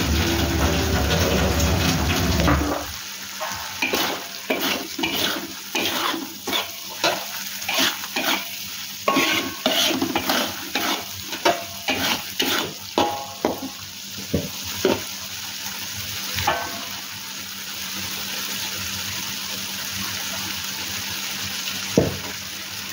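Metal spatula stirring and scraping chilli sambal in a wok, a run of scrapes and clinks about two a second over steady sizzling as the paste fries. The stirring stops about fifteen seconds in, leaving the sizzle, with one sharp knock near the end; a loud rushing noise at the start cuts off after about three seconds.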